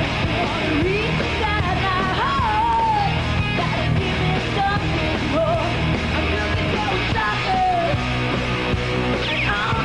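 Glam metal band playing live: distorted electric guitars, bass and drums, with a woman belting the lead vocal.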